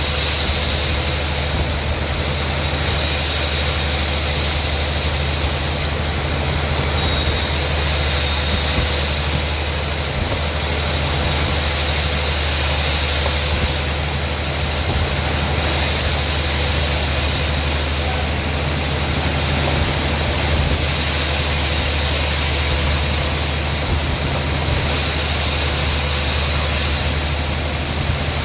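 Sawmill machinery running steadily: a constant low motor hum under a steady high hiss, with no change in pitch or load.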